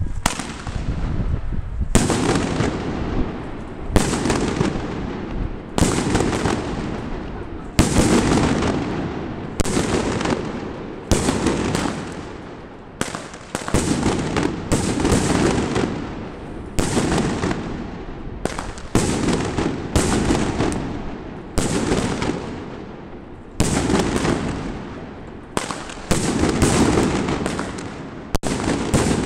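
A 21-shot repeater cake firework (21響禮炮, a '21-gun salute') firing its shots one after another. Each is a sharp bang that trails off, about every one to two seconds, coming closer together in the later shots.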